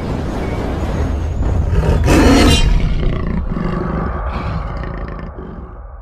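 A loud, deep roar over a heavy rumble, peaking about two seconds in and then slowly dying away.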